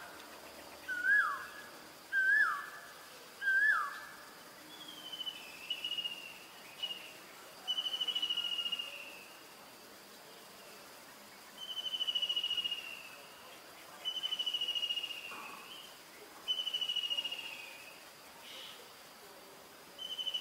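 Animal calls in the open: four short cries that rise and then fall, about a second apart, in the first few seconds. Then a higher descending trilled call comes back every two to four seconds. A faint steady insect hum runs underneath.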